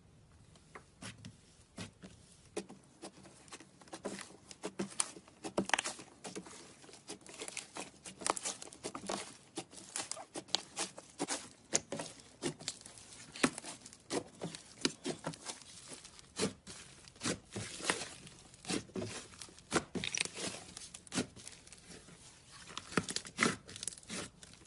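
Slime being squished and stretched by hand, giving off many irregular small pops, clicks and crackles.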